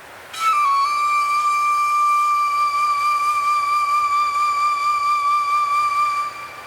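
A flute plays one long held note with a slight waver, dipping a little in pitch just after it starts and fading out near the end, over a soft wind-like hiss.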